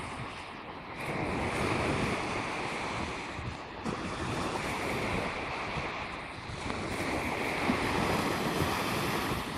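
Small Baltic Sea waves breaking and washing up a sandy shore, the surf swelling and easing every few seconds, with wind rumbling on the microphone.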